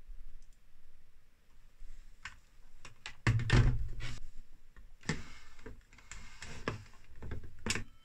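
Rotary telephone handset being lifted off its cradle and handled: a heavy thump about three seconds in, then a string of clicks and handling knocks from the plastic handset and hook switch.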